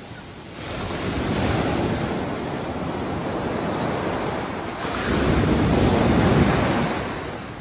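Ocean surf: two waves break and wash in. The first rises about half a second in, and a louder one comes about five seconds in, then dies away near the end.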